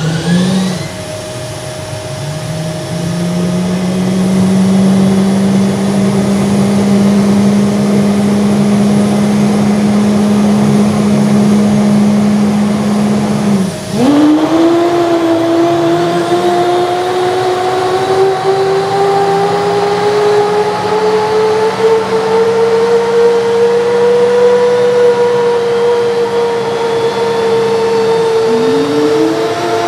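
F-15C Eagle jet engines starting up: a loud turbine whine spooling up and settling into a steady run. About halfway through there is a brief dip, then a fresh whine climbs slowly in pitch for about ten seconds and levels off, and another starts rising near the end.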